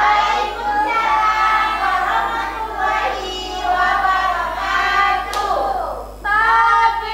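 Women's voices singing a children's song, a bright, high, lilting melody, over a steady low electrical hum.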